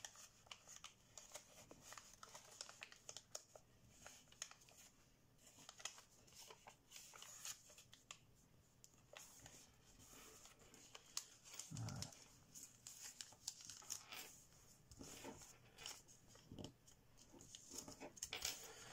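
Thin kami origami paper (15 cm, 53 g/m²) faintly rustling and crinkling in many quick crackles as it is folded and its creases pressed flat by fingers, with one soft low thump about twelve seconds in.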